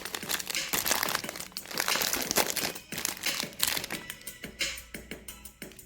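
Candy wrapper crinkling and crackling as a chocolate bar is unwrapped, dense for the first few seconds and then thinning to scattered crackles.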